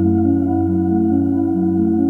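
Background music: held keyboard chords over a steady low bass note, the upper notes changing about every second.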